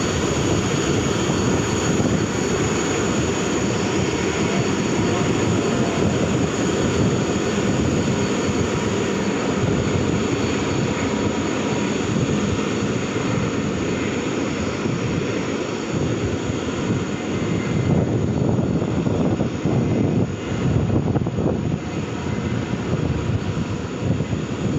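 Jet engines of an Airbus A330-200 freighter running, a steady roar with a thin high whine. The whine fades about ten seconds in, and the roar eases a little near the end.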